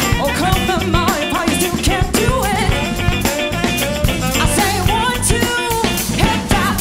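Live band playing a funk song: drum kit keeping a steady beat under bass, organ and tenor saxophone, with women singing into microphones.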